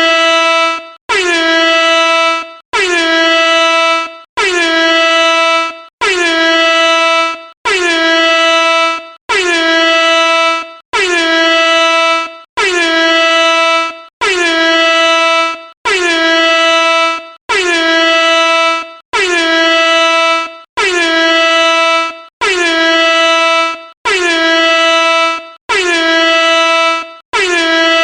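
Air horn blaring in identical repeated blasts, about one every second and a half, each blast sliding briefly down in pitch at its start and then holding one steady tone.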